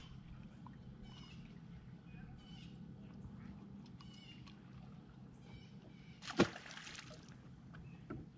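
A bird calling over and over, a short high call about every second and a half. About six seconds in comes a splash as a caught bass is let go back into the lake.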